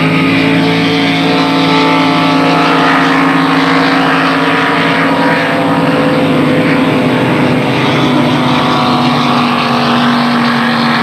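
Racing powerboat engine running at speed: a loud, steady drone that holds its pitch.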